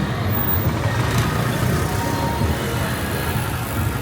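Busy street ambience dominated by a motor vehicle engine running close by, a steady low rumble with no sudden events.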